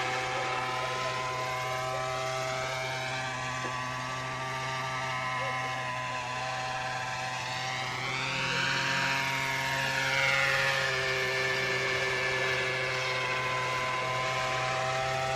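Century 800-size gas-powered RC helicopter in flight, its small gasoline engine and rotor running steadily, with one rise and fall in pitch about halfway through.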